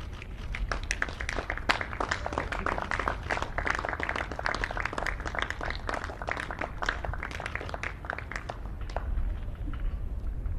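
Many camera shutters firing in rapid, overlapping bursts as the statue is revealed, a dense clicking that swells about half a second in and thins out near the end.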